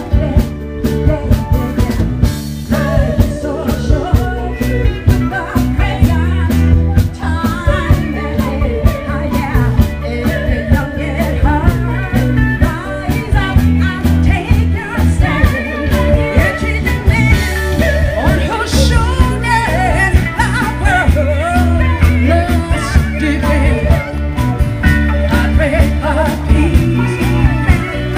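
Live band playing Motown-style music, with women's voices singing over a steady drum beat, amplified through a PA.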